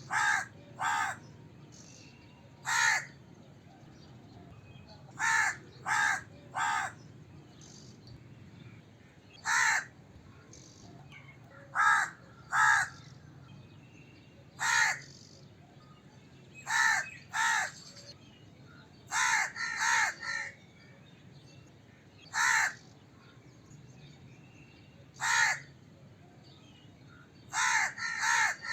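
Crow cawing: short caws, singly or in quick runs of two or three, repeated every few seconds.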